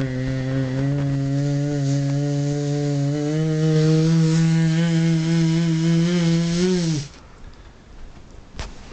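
A man's long, drawn-out 'aaah' building up to a sneeze. It holds one pitch, steps up about three seconds in, rises slightly, then breaks off suddenly about seven seconds in without the sneeze coming.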